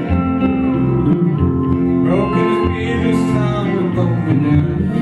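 Country music led by acoustic guitar, with a held sung note between lines.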